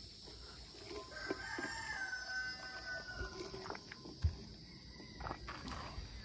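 A rooster crowing once, one long call of about two seconds starting about a second in. A single sharp knock follows a little after the middle, with a few lighter clicks around it.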